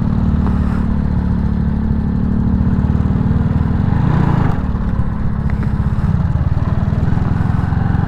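Honda Wave 110i's small single-cylinder four-stroke engine running steadily under load as the underbone motorcycle is ridden over a rough dirt trail; the engine note drops slightly about six seconds in.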